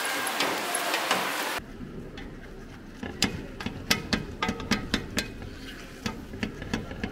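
Plastic spatula working cooked rice in a metal pan for crispy rice crust. First comes a dense scraping hiss that breaks off suddenly. Then, after a quieter stretch, comes a run of sharp, irregular clicks and taps as the spatula presses the rice and knocks against the pan.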